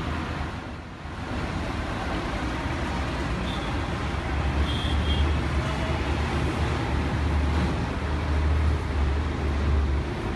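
Busy street traffic: buses, trucks, cars and auto-rickshaws running past in a steady mixed noise. A low engine rumble grows louder about four seconds in, and a few short horn toots sound around the middle.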